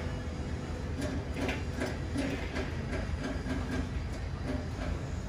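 A machine running in the background: a steady low hum with a regular clacking about two to three times a second.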